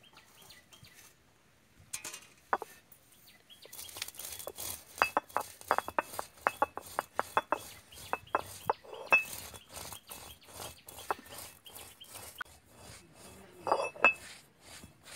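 Stone roller knocking and crushing roasted whole spices (coriander seeds, peppercorns, fennel, dried chillies) on a stone ammi grinding slab: after a quiet start, a run of sharp, irregular clacks of stone on stone and cracking seeds, with a louder cluster near the end.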